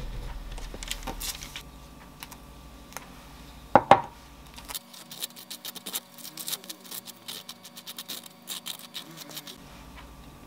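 A knife spreading Dijon mustard thinly over a slice of whole-wheat bread: a run of short scraping strokes across the toast's surface. Before it come some rustling of parchment paper and two sharp knocks about four seconds in.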